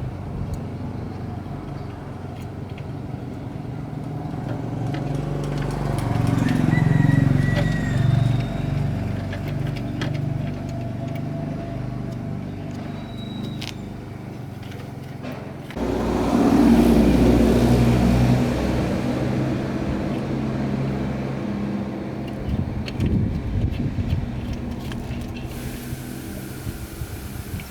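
Low engine rumble of passing motor vehicles, swelling and fading twice.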